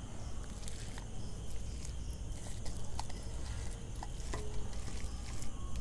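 Faint soft squishing of mashed boiled potato being mixed by hand on a plate, with a few light scattered ticks of a steel bowl and plate being handled, over a low steady background hum.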